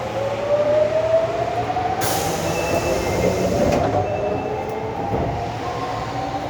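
Osaka Metro 22 series subway train pulling away, its traction motors giving a whine that rises steadily in pitch as it accelerates. A short hiss comes in about two seconds in and stops under two seconds later.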